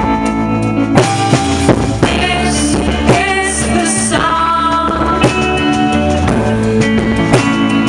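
Pop-rock song playing, with a drum kit, pitched instruments and singing.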